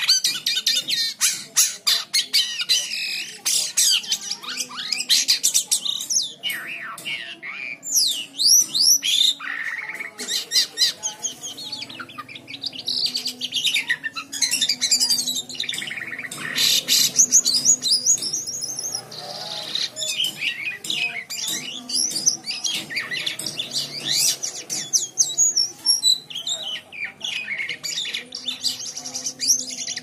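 Caged jalak kapas (kapasan) songbird singing continuously: long runs of rapid high chirps, sliding whistles and trills with only brief pauses.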